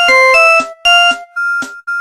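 Mobile phone ringtone playing: a short electronic melody of quick notes, then a single high note repeated about twice a second.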